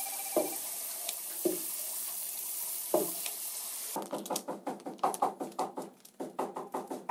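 Food sizzling as it deep-fries in oil, a steady hiss with a few light knocks. About four seconds in it cuts to a quick run of short taps.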